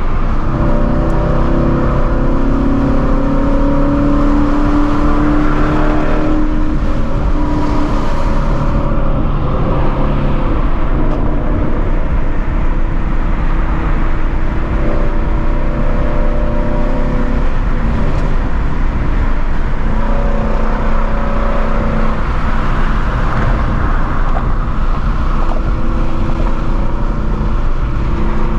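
Straight-piped Ford Mustang Shelby GT350's 5.2-litre flat-plane-crank V8 with long-tube headers, running loud and steady while driving. Its exhaust note shifts up and down slightly with the throttle a few times.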